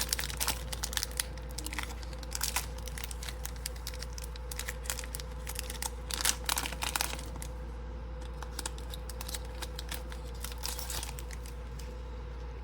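A trading card pack wrapper being handled, crinkling and tearing in irregular bursts of sharp crackles as the pack is opened.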